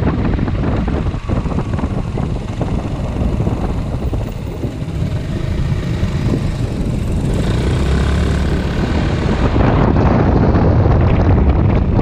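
Wind buffeting the microphone over the steady running of a maxi-scooter's engine while riding. It gets louder about three-quarters of the way through.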